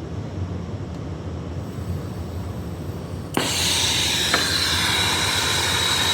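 Air-acetylene brazing torch lit with a pop a little over three seconds in, then burning with a loud steady hiss and a high whistle, the 'screaming' of the open flame.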